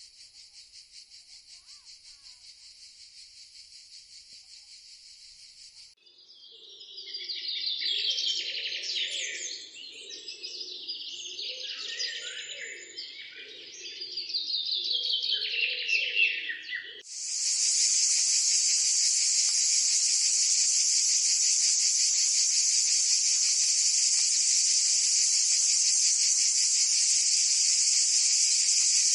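Outdoor nature sounds: a faint, fast-pulsing insect trill, then birdsong with quick falling chirps from about six seconds in. After about seventeen seconds a loud, steady, high insect drone takes over.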